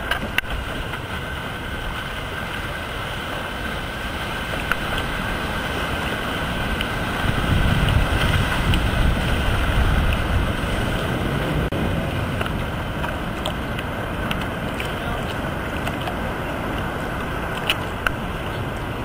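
Wind on the microphone over ocean water and breaking surf: a steady rushing noise, with a couple of small clicks near the end.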